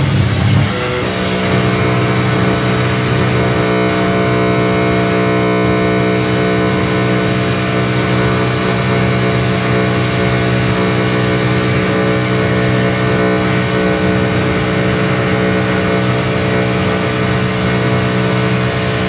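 Loud, sustained electronic drone from a live experimental music set: a dense stack of steady tones with a strong low hum at its base. It settles in about a second in and then holds unchanged.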